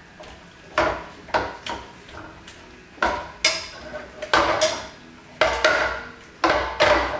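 A cooking utensil knocking and scraping against a metal frying pan as salsa is stirred into cooked onions and garlic: a dozen or so irregular clanks, about two a second, each with a short metallic ring.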